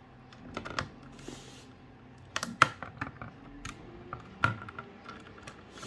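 Irregular small clicks and taps of a screwdriver and screws being handled on a monitor's circuit board and metal heatsink during disassembly.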